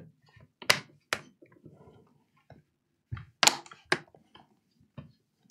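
Sharp plastic knocks and clicks from a laptop's case being handled, pressed down and turned over on a desk mat: two about a second in, two more a little past the middle, with fainter taps between.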